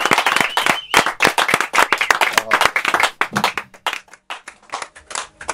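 A small group of people applauding: dense clapping that thins out after about three seconds into scattered claps.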